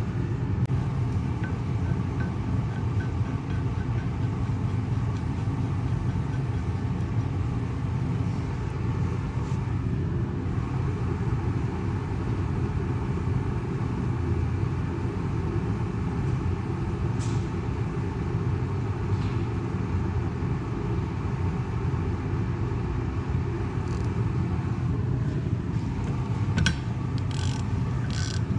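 Steady low rumble of running machinery. Near the end come a few sharp clicks as a ratchet wrench is worked on the centre bolt of a tractor's front planetary hub.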